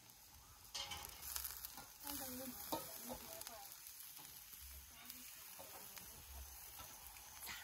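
Meat sizzling on a wire grill rack over a charcoal stove, getting louder a little under a second in.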